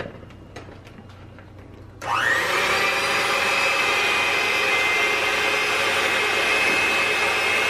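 Hamilton Beach electric hand mixer switched on about two seconds in, its motor whining up to speed and then running steadily as the beaters whip instant coffee, sugar and hot water for dalgona-style foam. A few light clicks come before it starts.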